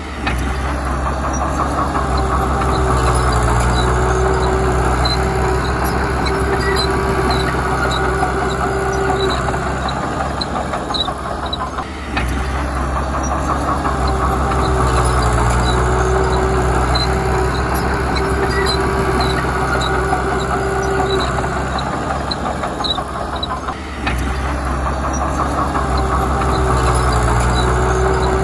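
Komatsu D31P crawler bulldozer's diesel engine running hard, with a whine and light ticking about twice a second. The engine note swells and eases every twelve seconds or so.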